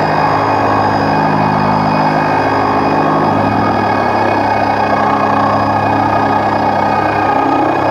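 Casiotone MT-400V keyboard playing a sustained, church-organ-style drone, processed through a Make Noise Strega and echo and reverb pedals. Held notes over a low drone, with the upper notes shifting a few times.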